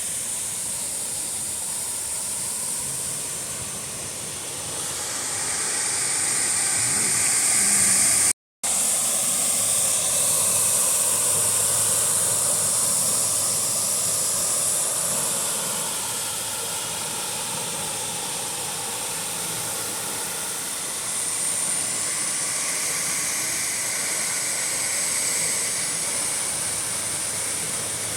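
Waterfall's steady rush of falling and splashing water, swelling and easing slowly, with a brief complete dropout about eight seconds in.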